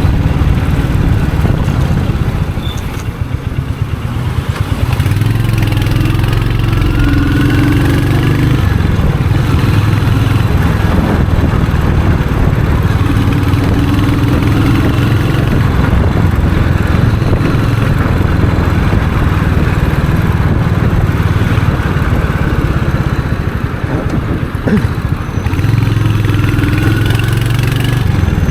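Royal Enfield Hunter 350's single-cylinder engine and exhaust running under way, pulling harder a few times with brief eases of the throttle about four seconds in and again near the end.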